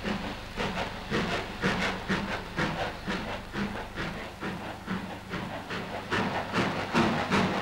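Steam locomotive chuffing, with hissing exhaust beats about three a second that get louder near the end as the train gets under way.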